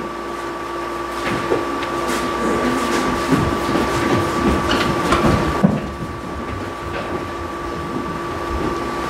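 Steady hum with two held tones, under irregular footsteps and shuffling of actors walking off a stage, busiest in the middle.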